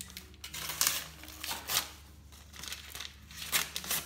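Wrapping paper crinkling and tearing in several short rustling bursts as a whippet tugs at a wrapped present with its teeth.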